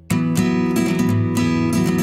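Background music with strummed acoustic guitar, cutting in abruptly at the start.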